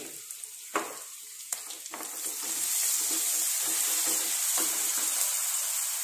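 Sliced onions frying in oil in a nonstick kadai, sizzling, stirred with a wooden spatula that knocks against the pan a few times in the first two seconds. The sizzle swells about two seconds in and then holds steady.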